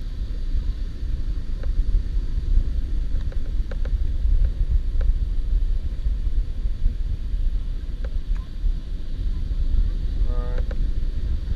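Wind buffeting the microphone: a steady, unsteady-level low rumble, with a few faint clicks and one brief pitched call about ten seconds in.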